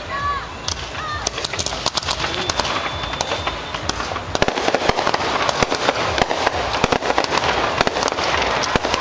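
Dense, irregular crackling and popping, many sharp cracks a second in quick succession, like firecrackers going off. A few short chirps sound in the first second.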